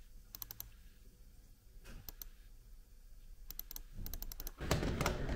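Typing on a computer keyboard: short bursts of key clicks with pauses between them. Near the end a louder, steady noise takes over.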